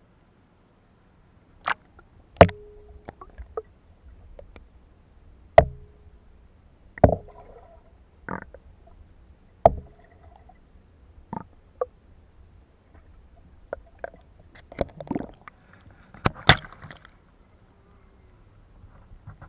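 Irregular knocks and clunks against a plastic sit-on-top kayak hull, about one every second or two, a few with a short hollow ring, over faint water sounds.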